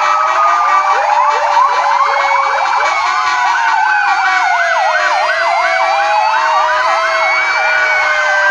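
Several fire engine sirens sounding together in honour. Slow wails overlap with a run of quick rising whoops in the first few seconds and fast yelps from the middle on.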